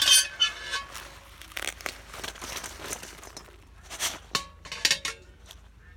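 Roasted red chillies and whole spices rustling and scraping against steel as they are tipped from a pan into a bowl. A crackly, crinkling rustle with scattered clicks, loudest right at the start and again about four seconds in.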